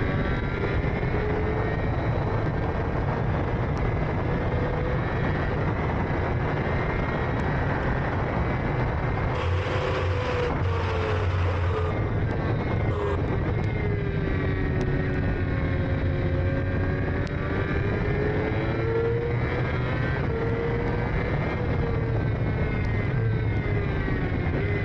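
Racing sidecar engine at race pace, its pitch climbing and falling again and again with throttle and gear changes, over a steady low rumble. A brief burst of noise lasts about two seconds, starting around ten seconds in.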